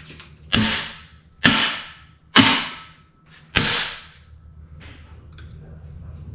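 Four hammer blows on a steel tool, each ringing out metallically and fading over about half a second. They are struck to break loose an engine cooling fan (fan clutch) that has rusted solid and will not unscrew.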